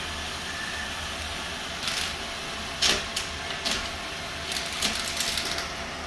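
Roomba robot vacuum running with a steady whir, broken by a series of irregular clicks and rattles from about two seconds in until shortly before the end.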